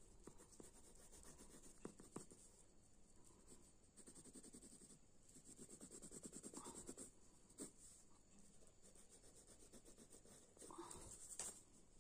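Faint scratching of a white coloured pencil on paper, in quick short strokes that come in rapid runs, with a denser run in the middle and another near the end.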